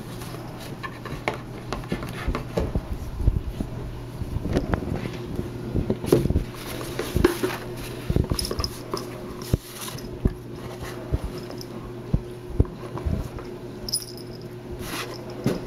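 A cat pawing at, rubbing its face against and mouthing a small cardboard box of catnip, so the box knocks and scrapes on a wooden tabletop in irregular thumps and scuffs.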